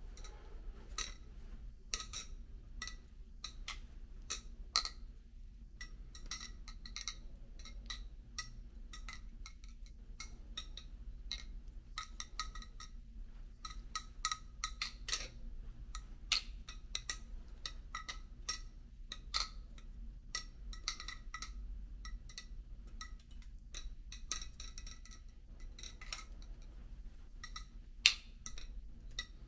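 Serif balisong being flipped: quick, irregular metallic clicks and clacks as the handles swing around and strike each other, each with a short ring. One louder clack near the end.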